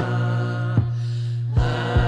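Background music: held, chant-like tones over a steady low drone, with low thumps every second or so. The higher tones drop out for about half a second in the middle.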